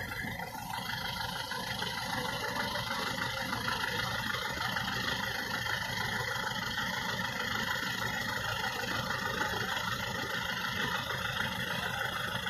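A heavy engine idling steadily, with no change in pitch or level.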